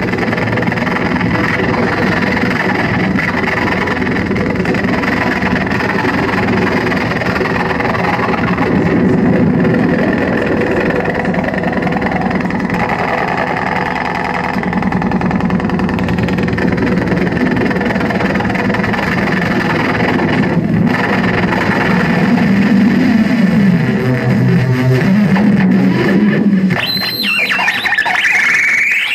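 Live noise music: a loud, continuous wash of droning, distorted electronic noise with a guitar-like drone through effects units. About 27 seconds in, it changes to squealing tones that sweep up and down in pitch.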